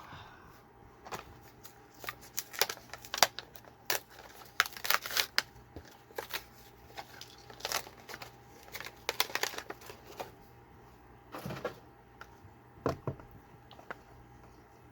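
Toy-car packaging being pried open and handled by hand: irregular clicks, snaps and crinkles of plastic and card, coming in clusters.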